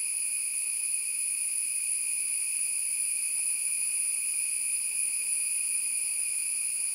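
A steady, unbroken high-pitched drone of forest insects.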